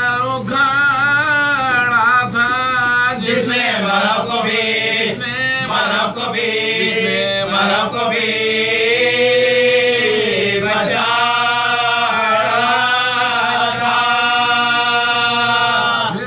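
Men's voices chanting a marsiya (Urdu elegy for Imam Husain) without instruments, in long drawn-out notes with wavering ornaments.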